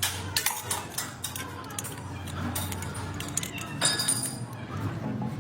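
Metal tools and steering parts clinking and clanking against each other in a series of sharp, irregular taps, as hand work goes on at the steering rack.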